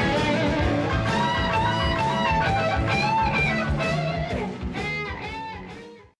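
Music led by electric guitar, with a steady beat. It fades out from about five seconds in and stops just before six seconds.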